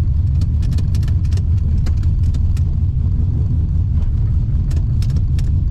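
LS1 5.7-litre V8 in a VN Commodore idling with a steady low rumble as the car creeps forward under its own power, its first move after the engine was refitted with new ported heads. Scattered light clicks sound over the rumble.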